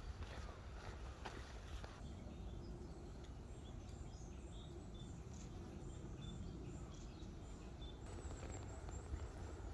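Faint wild birdsong in woodland: short high chirps and whistled notes scattered through the middle and later part, over a low steady rumble.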